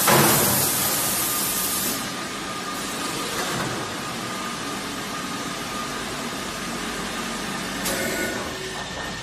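Automatic plastic vacuum forming machine running, with a loud hiss for about the first two seconds, then a steady mechanical noise with a faint high whine. A short clack comes near the end.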